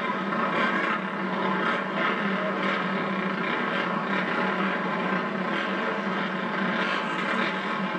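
Engines of a pack of flat-track racing motorcycles running together, a steady mass of overlapping engine sound.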